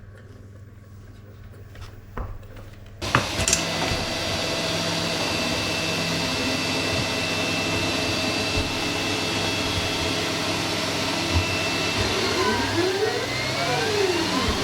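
FLSUN S1 Pro delta 3D printer running a high-speed print: a loud, steady rush of cooling fans with steady whine tones from the stepper motors, starting suddenly about three seconds in. Near the end the motor whine glides up and down in pitch in several crossing lines as the motors speed up and slow down.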